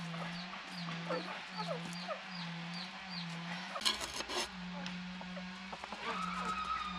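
Outdoor background of an evenly repeating high chirping call over a low pulsing tone, with a few sharp clinks of a metal utensil against an enamel plate about four seconds in.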